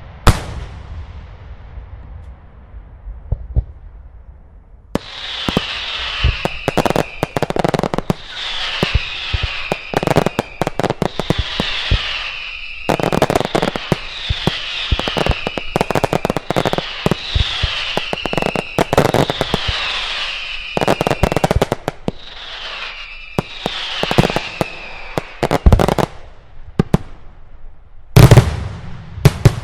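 Daylight fireworks firing close by: dense cracking reports and bangs, with a falling whistle repeating every second and a half to two seconds. A few heavy bangs come near the end.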